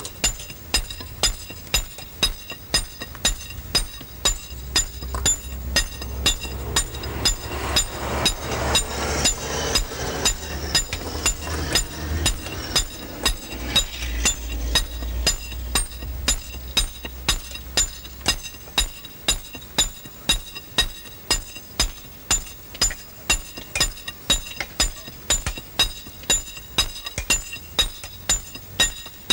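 Hand hammers striking stones in a steady rhythm, about two sharp metallic clinks a second, each blow ringing briefly.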